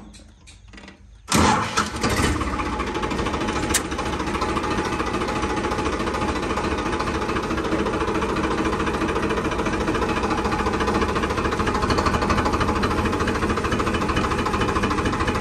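Diesel farm machine engine starting up about a second in, then running steadily.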